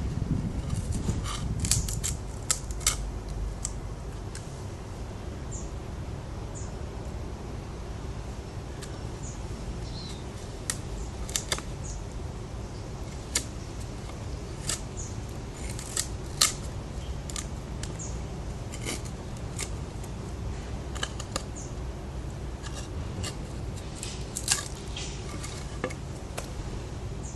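Spyderco Paramilitary 2 folding knife with an S30V blade cutting, giving a scatter of short, sharp, irregular clicks and snips over a steady low background noise.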